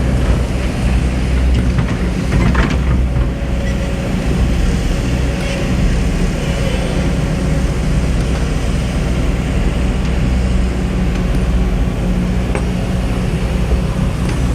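Heavy hydraulic excavator's diesel engine running steadily under working load, with a few faint knocks from the machine.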